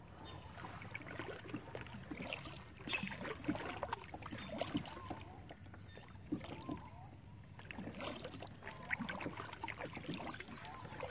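Kayak paddle strokes dipping and pulling through calm river water, with soft irregular splashes and drips coming in two spells of strokes and a short lull between them.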